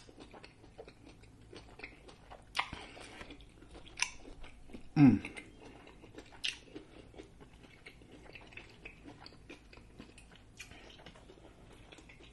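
Close-up chewing of grilled lobster tail meat: steady wet mouth sounds and small clicks, with a few louder smacks. About five seconds in comes a short low vocal hum that falls in pitch.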